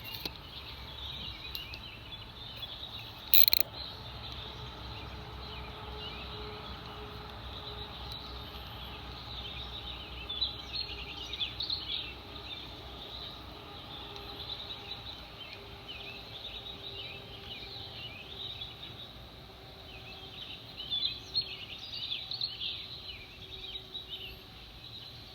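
Birds chirping, with bursts of busier twittering twice; one sharp click about three and a half seconds in, over a low steady outdoor rumble.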